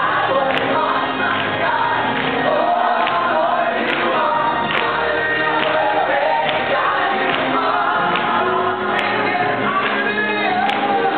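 Gospel praise team singing a worship song in chorus through microphones, with musical accompaniment and a steady beat.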